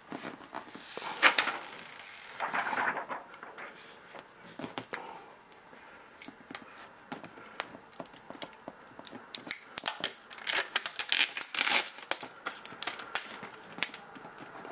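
Hands moving unboxing packaging and accessories about: plastic rustling and crinkling twice in the first few seconds, then a run of small clicks, taps and crackles.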